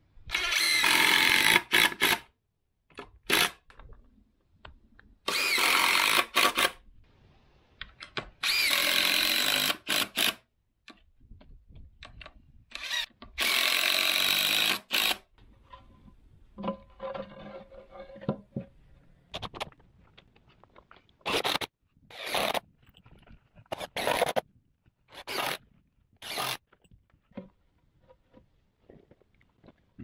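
Cordless impact driver driving screws into wooden braces. There are four long runs of about two seconds each in the first half, then a string of shorter bursts about a second apart later on.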